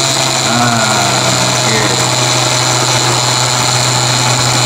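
Countertop blender motor running at a steady pitch, blending ice with coffee, banana and dates in its glass jug.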